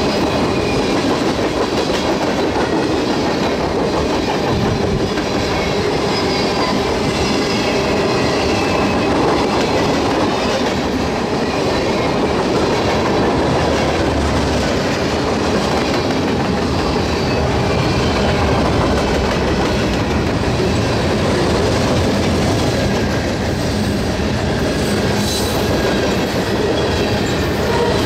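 Freight train cars rolling steadily past at track side, wheels rattling and clacking over the rail joints.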